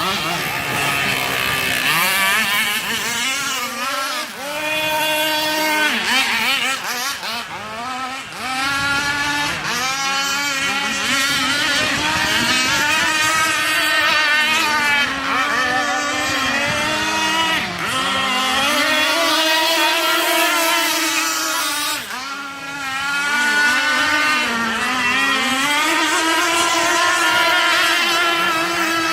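Petrol-engined radio-controlled catamaran boat running, its small engine's pitch rising and falling again and again as the throttle is worked, with several sharp drops and climbs.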